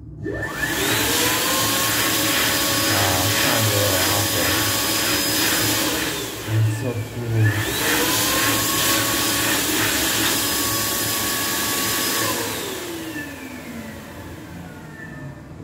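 Bradley Advocate sink's built-in hand dryer starting with a rising whine and blowing steadily for about six seconds. It winds down, restarts with another rising whine, blows for about five seconds more, then spins down near the end.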